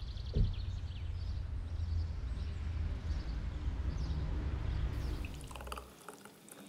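Street ambience with a steady low rumble, a few bird chirps and one thump about half a second in. Near the end a thick blended smoothie pours from a blender jug into a glass, with short splashes and drips.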